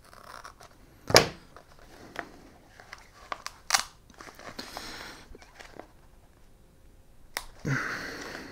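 Scissors snip the edge of TPU-coated packraft fabric with one sharp click about a second in. Then the stiff coated fabric crinkles and rustles, with a few more clicks, as hands strain to tear it from the cut.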